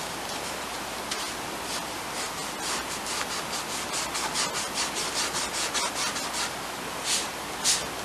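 Paintbrush stroking paint onto a wooden craft piece: a run of short, scratchy brush strokes, about two to three a second, thickest in the middle, with two separate strokes near the end.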